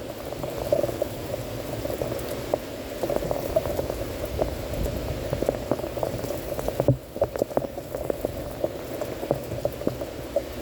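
Torrential rain pouring down, with dense drops striking and splashing close to the phone's microphone. The sound dips briefly about seven seconds in, then comes back.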